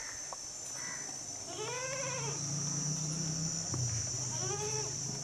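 Goat bleating twice, each call rising and then falling in pitch, with insects chirring steadily and high behind.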